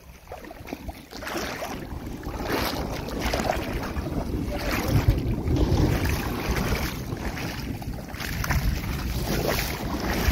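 Wind buffeting the microphone, over water sloshing and splashing as someone wades through shallow sea water, in repeated surges every second or so.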